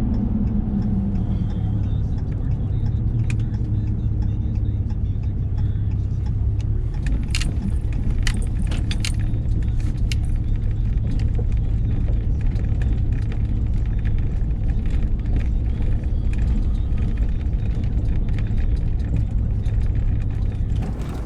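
Vehicle driving: a steady low rumble of engine and road noise, with loose items clicking and rattling, most of all about a third of the way in.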